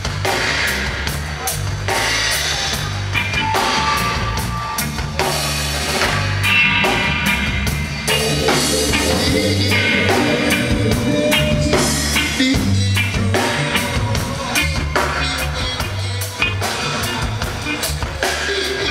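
Live band playing: drum kit, bass guitar and electric guitar, with a repeating bass line under the drums.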